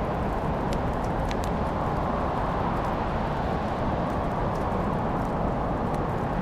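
Crackling fire: a steady low rush of burning, with scattered small sharp pops and crackles from the wood.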